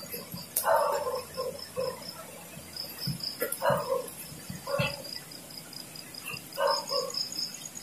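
Crickets chirping in a steady, fast-pulsing trill, with four short, louder cries rising over it at irregular intervals.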